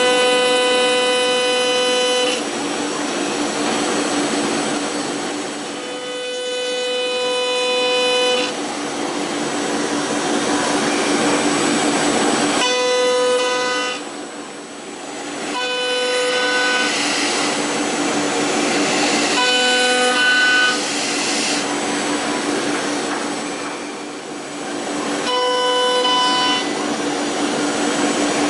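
CNC milling machine cutting a polyacetal (POM) block: a pitched whine from the spindle and cutter comes and goes every few seconds as the tool works through its passes, between stretches of dense cutting hiss over a steady hum.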